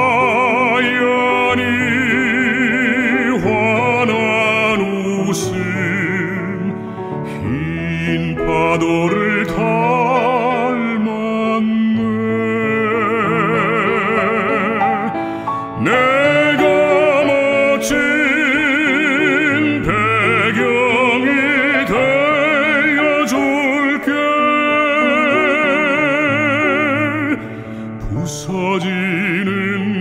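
A baritone singing a Korean art song in classical operatic style with wide vibrato, over piano accompaniment. There is a short breath-like dip near the end.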